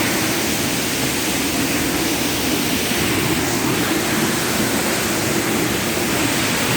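Steady rush of a waterfall, a continuous even noise that does not change.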